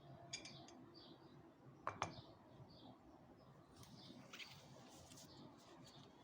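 Quiet room tone with faint bird chirps in the background and a few small clicks; the loudest is a pair of sharp clicks about two seconds in.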